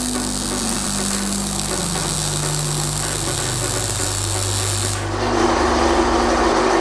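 MIG welding arc crackling and sizzling steadily as a bead is run on steel, stopping about five seconds in. Background music plays underneath.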